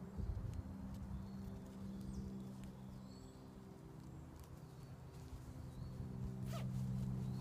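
Fabric rustling and handling of a nylon sleeping bag as the expander panel is pushed into place at its foot. A steady low hum runs underneath, and a small bird chirps again and again, with one sharp scratchy sound near the end.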